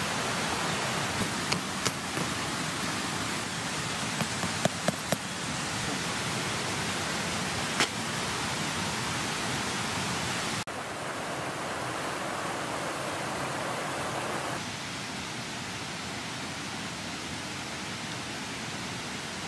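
Steady rushing of a mountain stream's flowing water, with a few short sharp knocks in the first eight seconds. The rush drops slightly in level about ten and a half seconds in and again near fifteen seconds.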